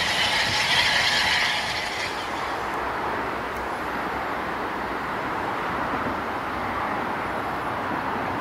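Steam locomotive moving away along the line with a loud hiss, which cuts off abruptly about two seconds in. It is followed by a quieter steady rumble of distant traffic.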